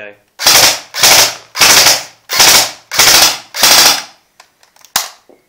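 Tokyo Marui SIG 552 airsoft electric gun running on an 8.4-volt battery, firing six short full-auto bursts of about half a second each at an even pace, followed by a few light mechanical clicks near the end.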